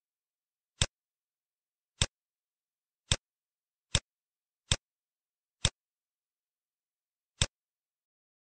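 Computer mouse button clicking, about eight single sharp clicks at uneven intervals with silence between them.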